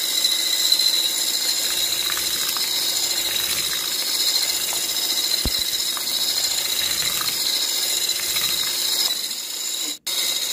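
Electric hand mixer running steadily, its beaters whipping a wet batter in a bowl. The sound drops out for an instant near the end.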